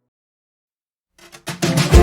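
Silence for just over a second, then background music starts with drum hits leading straight into a full band.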